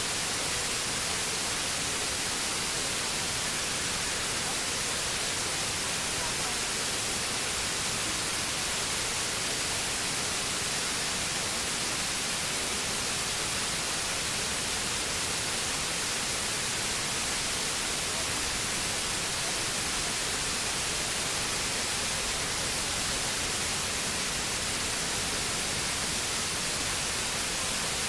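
Artificial rock waterfall cascading into a pool: a steady, even rush of falling water, heavy in the hiss range.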